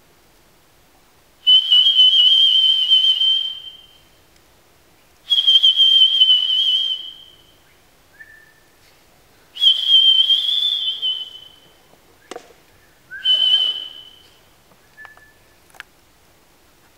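Improvised mouth sounds: a high, breathy whistle-like tone held for about two seconds, four times over, with small clicks and short quieter chirps between.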